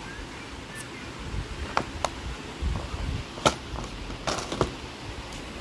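Plastic drawers of a makeup organizer being slid open and pushed shut, with a handful of sharp plastic clicks and knocks, the loudest about three and a half seconds in.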